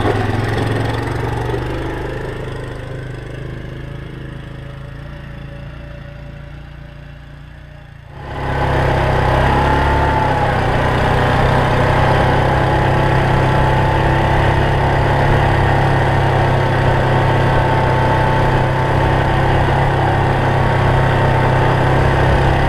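2017 Yamaha Grizzly 700 ATV's single-cylinder engine pulling away and fading into the distance. About eight seconds in it cuts to close, loud, steady engine running with tyre noise as the ATV rides along a snowy trail.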